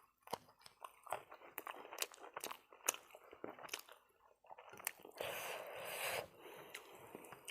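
Close-miked mouth sounds of eating: wet chewing with many small sharp clicks and crunches, and a longer soft rustling noise about five seconds in.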